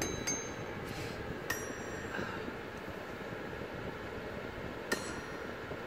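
A few sharp, ringing glassy clinks of a pointed prosthetic spike leg striking a glass floor: three in the first second and a half and one more near the end, over a steady hiss.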